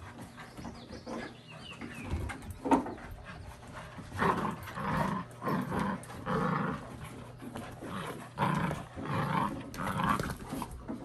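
Labrador retrievers growling in play while tugging a leash toy between them, in short repeated bursts from about four seconds in. A sharp knock comes a little before.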